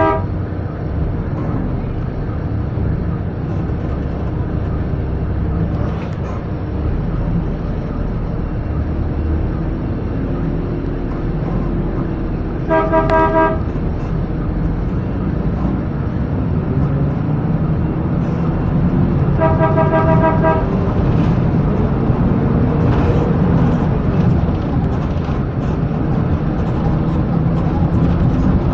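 Inside a city bus in traffic: the bus engine's steady low rumble, with a vehicle horn sounding twice, briefly about halfway through and for about a second and a half a few seconds later. The engine grows a little louder near the end.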